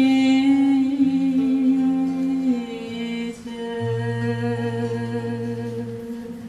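A woman's voice holding long wordless notes of the melody over acoustic guitar accompaniment as the romance closes. The notes step down in pitch and the sound dies away near the end.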